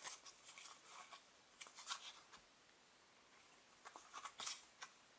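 Faint rustling of paper football stickers being handled and shuffled by hand, in a few brief bursts with near silence between.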